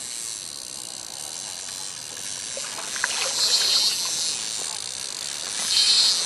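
Steady hiss of lapping water and wind, with two short, louder high-pitched bursts, about three and a half and six seconds in, from a spinning reel while a hooked fish is played.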